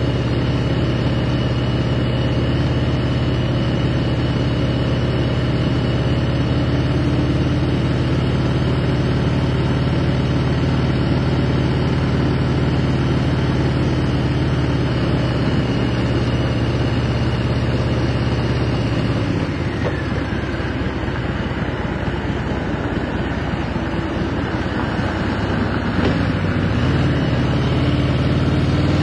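Cruiser motorcycle's engine running at a steady cruising speed under wind rush. The engine eases off about two-thirds of the way through, then rises in pitch as it accelerates near the end.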